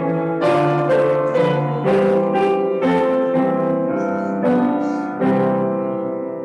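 Piano music: a run of struck chords and notes, ending about five seconds in on a held chord that slowly fades.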